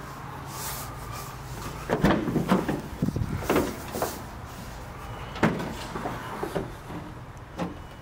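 Ford Transit Connect's rear door being unlatched and swung open: a cluster of clicks and clunks from the handle and latch about two seconds in, then several more single knocks as the door swings open.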